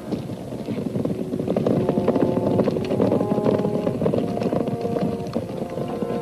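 Many horses galloping, a dense clatter of hooves that grows louder about a second in, with background music playing over it.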